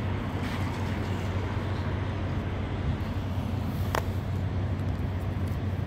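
Steady low rumble of idling semi-truck diesel engines, with one short click about four seconds in.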